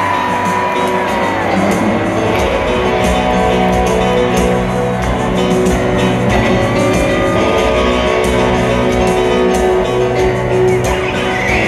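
Live rock band playing a slow power ballad, recorded from the crowd in a stadium: a lead electric guitar holds long notes with pitch bends over piano, bass and drums.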